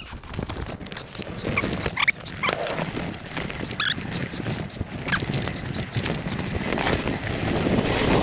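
Mountain bike riding down a steep dirt trail: rough tyre noise on dirt and a rattle of clicks and knocks from the bike over the ground, with a couple of short squeaks, the loudest about 4 s in.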